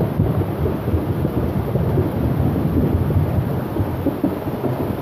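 Rainstorm noise: a steady, dense, low-pitched wash of sound with no single thunderclap standing out.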